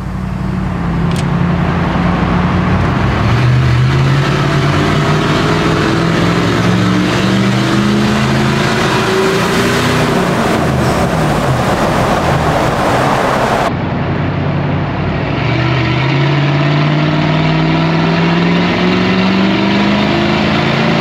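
Lexus GX470's 4.7-litre 2UZ-FE V8 with a straight-piped exhaust (muffler removed), accelerating hard through a tunnel. The exhaust note climbs in pitch as it revs out, then climbs again in a second pull near the end.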